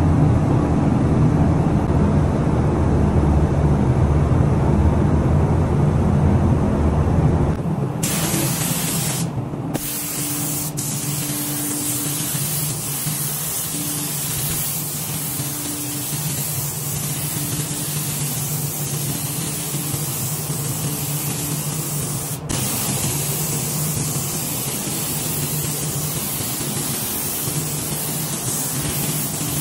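Gravity-feed paint spray gun spraying black paint, a steady hiss of compressed air with a low hum underneath. The first stretch is louder and heavier in the low end, and the hiss breaks off briefly a few times.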